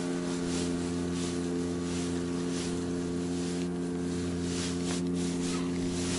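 Outboard motor running at a steady speed, with water hissing past the boat in regular pulses.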